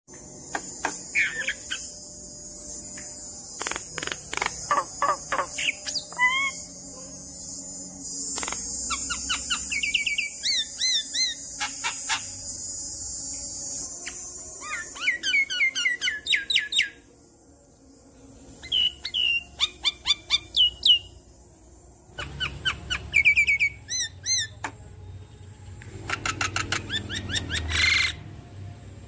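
Javan myna (white-vented myna) singing: a varied run of harsh rattling clicks, chirps and whistled notes in bursts, with short pauses between phrases.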